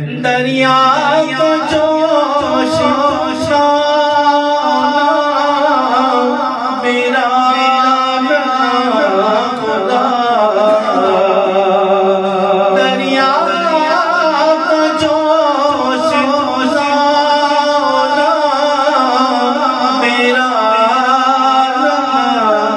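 A man sings an Urdu naat into a microphone, a solo voice in long, wavering, ornamented lines. A steady low hum runs beneath the voice.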